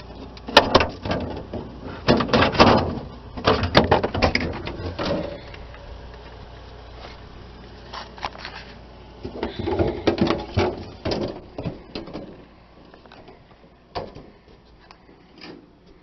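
Plastic evaporator cover panel inside a refrigerator's freezer compartment being pried loose and pulled off: two spells of irregular plastic rattling, knocking and scraping, then a couple of single clicks near the end.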